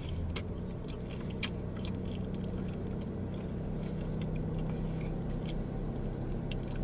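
A steady low vehicle hum that swells slightly midway, with scattered small wet clicks and smacks of someone chewing saucy chicken wings.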